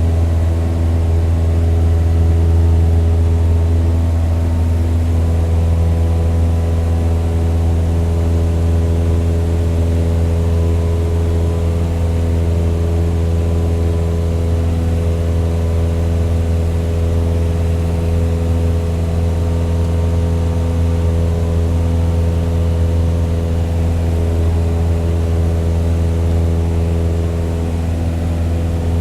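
Toy model airplane's motor droning in flight at a steady, unchanging pitch.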